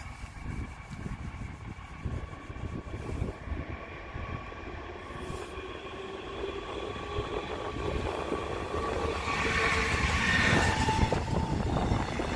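Electric locomotive hauling double-deck regional coaches approaching and passing close, a steady whine under wheel-on-rail noise that grows louder, with the loudest rush of wheel noise as the locomotive goes by about ten seconds in.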